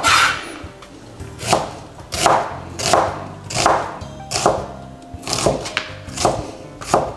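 Chef's knife slicing a red onion on a plastic cutting board: about nine crisp cuts, each ending with the blade tapping the board, roughly one every three-quarters of a second.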